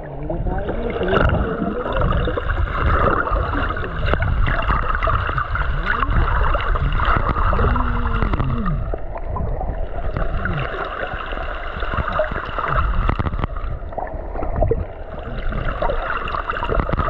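Seawater sloshing and gurgling close by, over a steady low rumble.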